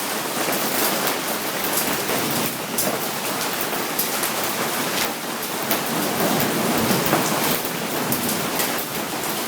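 Hail and heavy rain pelting down: a dense, steady hiss full of sharp ticks from hailstones striking.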